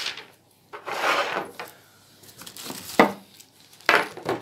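Water purifier filter cartridges being taken out of their box and handled: a rustling scrape about a second in, then a sharp knock about three seconds in and two more knocks near the end.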